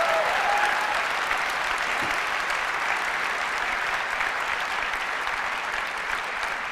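Large audience applauding, a steady mass of clapping that eases off slightly over the seconds.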